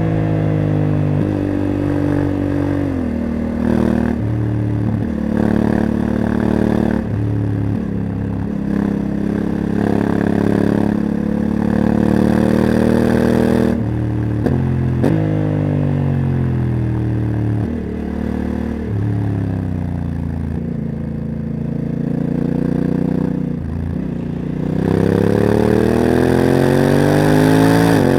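Honda CRF1100L Africa Twin's parallel-twin engine, fitted with a Leo Vince exhaust, ridden hard through bends: the engine note falls off and picks up again several times as the DCT automatic gearbox steps through the gears, with the revs climbing steeply near the end. Wind rushes past the microphone throughout.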